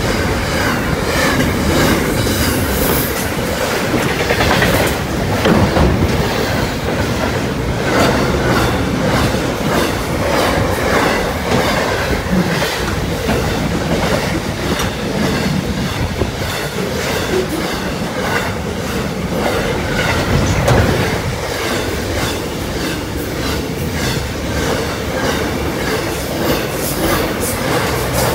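Container freight train wagons rolling past close by: a loud, steady rumble with rapid clickety-clack of the wheels over the rail joints.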